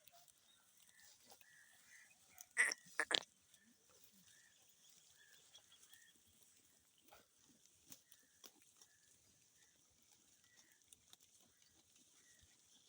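A goat giving two or three short, harsh calls in quick succession about two and a half seconds in, over quiet surroundings with faint high chirps.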